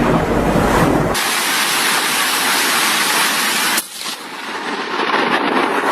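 Loud, steady hiss of a violent storm, with sudden cuts from one clip to the next about a second in and again near four seconds in.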